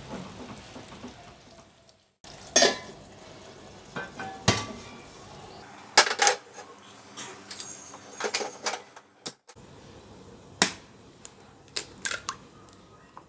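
Kitchen utensils knocking and clinking against a pan and dishes: about a dozen sharp, irregular clacks over a faint background.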